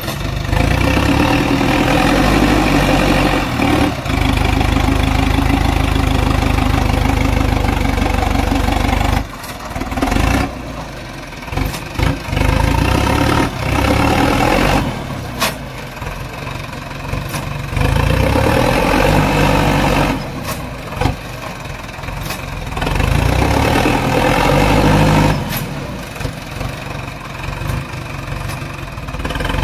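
Sonalika DI 750 tractor's diesel engine labouring under load on a steep climb. It runs hard for the first several seconds, then its sound dips and swells repeatedly as the load comes and goes.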